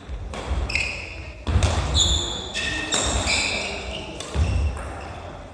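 Badminton singles rally on a wooden sports-hall floor: rackets hitting the shuttlecock with sharp cracks, shoes squeaking briefly on the floor, and feet thudding as the players run and land, with a jump for an overhead shot near the end.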